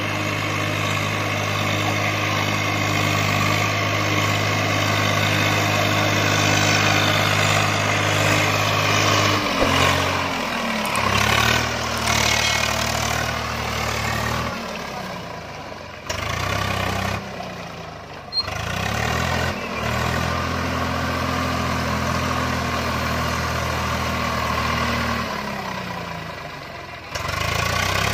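Swaraj 744 tractor's diesel engine running under load, its note rising and falling several times as the rear tyres churn through deep mud.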